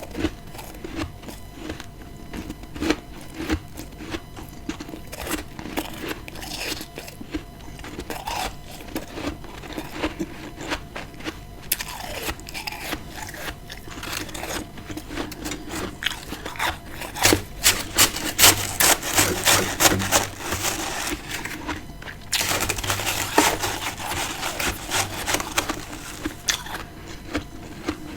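Person biting and chewing freezer frost: crisp crunching and crackling, sparse at first, growing dense and louder from about halfway through.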